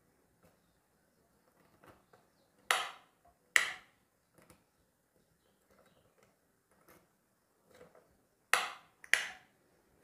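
Four sharp clicks in two pairs, each pair under a second apart, from handling a switch board while its sockets are tested one by one with a bulb test lamp.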